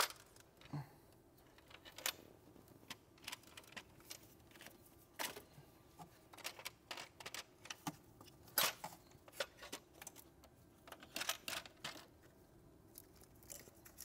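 Hands working the brittle plastic valve cover of a BMW N20 engine loose and lifting it off: irregular plastic clicks, knocks and rattles, the loudest about eight and a half seconds in.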